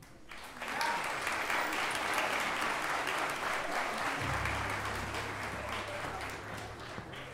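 Audience applauding, swelling up within the first second and slowly tapering off. A low steady hum comes in about four seconds in.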